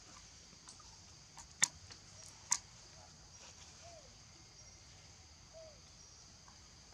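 Outdoor forest ambience: a steady high hiss with a few sharp clicks, the two loudest about one and a half and two and a half seconds in, and a couple of faint short chirps later on.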